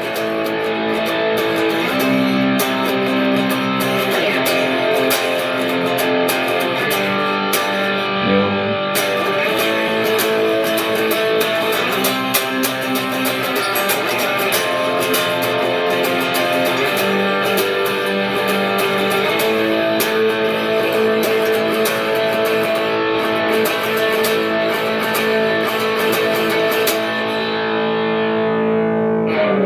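Guitar music: sustained chords changing every couple of seconds, stopping at the very end.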